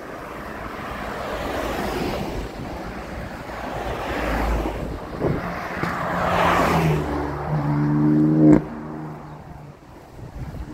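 Road traffic: cars passing close by, the rushing noise building over several seconds. Near the end an engine's pitched note rises briefly, then cuts off suddenly with a click.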